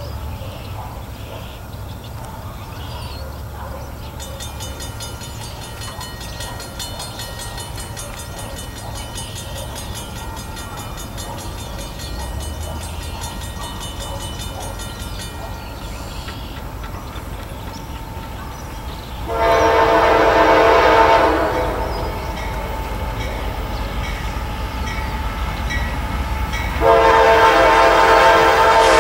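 Norfolk Southern freight train approaching, its diesel locomotives giving a low steady rumble. The lead locomotive's multi-chime horn sounds one long blast about two-thirds of the way in, and another long blast starts near the end.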